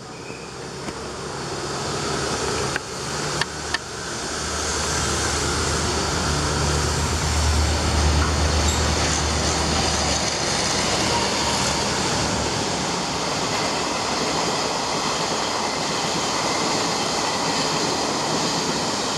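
Diesel-electric locomotive hauling a Chu-Kuang express train through a station without stopping. The engine's low drone builds and is loudest as the locomotive passes about eight seconds in, then gives way to the steady rushing noise of the coaches' wheels on the rails.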